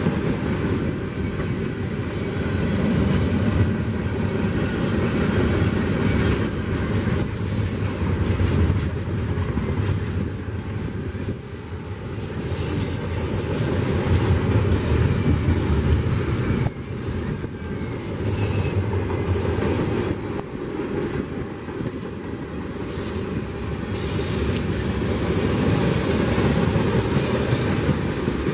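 Cars of a mixed freight train (coil-steel cars, autoracks, tank cars and hoppers) rolling past close by: a steady rumble of steel wheels on the rails with clacking over the rail joints. A few brief high wheel squeals come through near the middle and about two-thirds of the way in.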